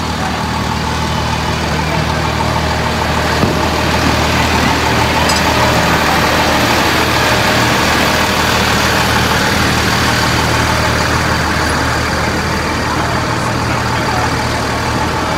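Fire engine idling steadily close by, a continuous low engine hum with a steady higher whirring noise over it.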